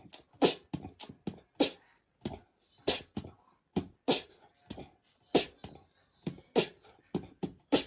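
A rapid, irregular run of short, sharp, breathy bursts, about three a second.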